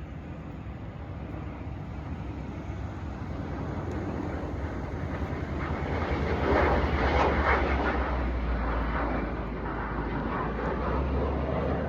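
Airplane flying overhead, a steady rumbling drone that grows louder as it approaches.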